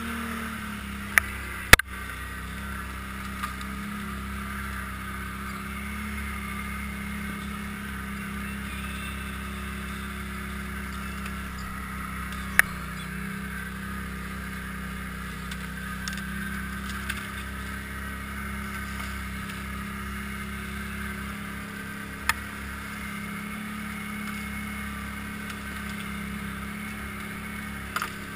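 Engine of an off-road vehicle running steadily at an even pace as it rides through snow, with a few sharp knocks over the drone.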